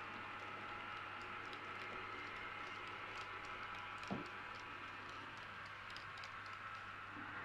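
Model railway freight wagons rolling along the track, their small wheels giving irregular light clicks over the rail joints above a steady low hum and hiss. A single soft knock sounds about four seconds in, as the last wagon passes, and the clicks then thin out.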